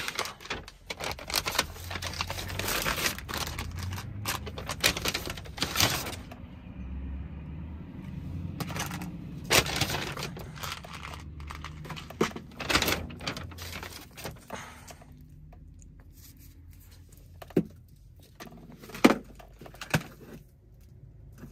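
Plastic food packaging and a paper bag rustling and crinkling as groceries are unpacked and laid on a table, busiest in the first few seconds, followed by several sharp knocks as items are set down.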